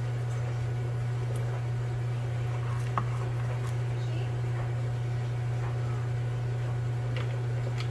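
Steady low hum throughout, with a few faint clicks and taps as a small pumpkin ornament is set down on a wooden tray, the clearest about three seconds in.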